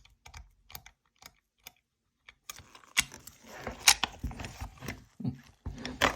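Master Lock key safe being worked open by hand: a few light, spaced clicks, then from about two and a half seconds in a denser metallic rattle with several sharp clacks.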